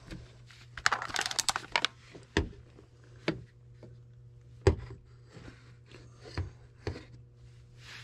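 Handling noises from work at close range: a crinkling, crackling rustle for about a second, then a handful of separate sharp clicks and knocks, the loudest near the middle, over a steady low hum.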